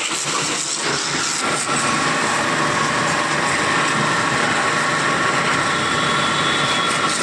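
High-pressure washer running steadily, its 10 hp motor driving a brass plunger pump, with a faint steady whine from about a second and a half in.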